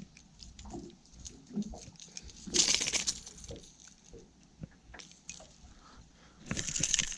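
Handling noise from a small pickerel just caught and being unhooked: scattered small knocks and clicks, with two brief louder rushing bursts, about two and a half seconds in and near the end.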